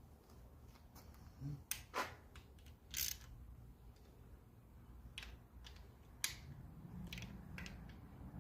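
Scattered light metallic clicks and taps, about seven spread out, from head bolts and hand tools being handled while new head bolts are started into a rebuilt engine block.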